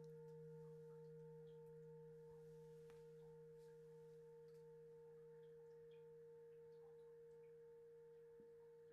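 A large singing bowl ringing out faintly after being struck: a steady low hum with a higher overtone, the upper overtone pulsing, all slowly fading.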